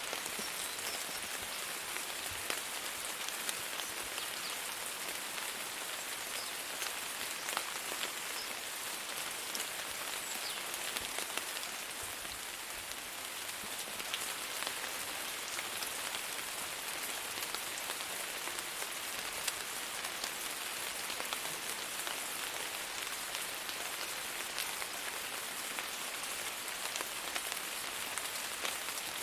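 Steady rain falling on a surface: a dense, even hiss with many small drop patters.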